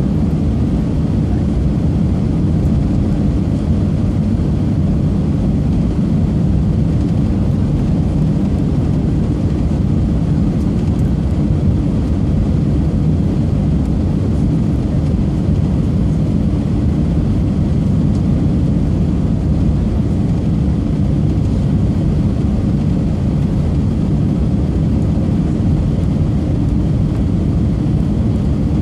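Steady low rumble of an airliner's engines and rushing air, heard from inside the passenger cabin during the approach to land.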